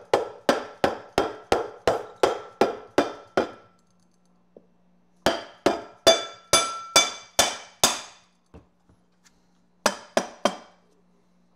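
Rubber mallet striking an electric unicycle hub motor in its aluminium rim, working around the rim to tap it evenly into place. The blows come about three a second in two long runs with a pause between, then a few more near the end, each leaving a short metallic ring.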